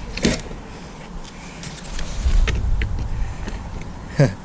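A steel chair being shoved and worked through an opening into a vehicle: scattered knocks and clatter, and a low rumble in the middle. A loud, short sound falling in pitch comes near the end.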